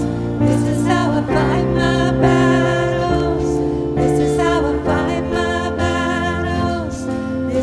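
Church worship band playing a slow song with sung vocals over sustained chords.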